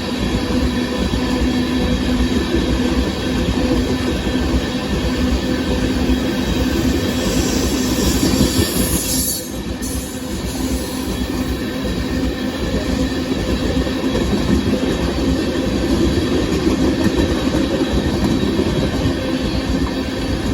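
Freight cars of a Union Pacific sand train rolling past a grade crossing: a steady, loud rumble and clatter of wheels on the rails, with a brief high hiss about eight seconds in.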